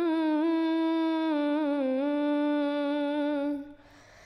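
A single voice singing one long held note of an Arabic devotional nasheed, the pitch wavering and dipping slightly near the middle, then breaking off shortly before the end.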